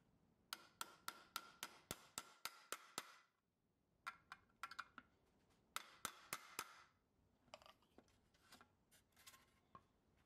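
Small hammer tapping a steel punch to set a rivet in a toy truck's sheet-steel part: a quick run of about ten sharp metallic taps at roughly four a second, then shorter bursts of taps after a pause, lighter near the end.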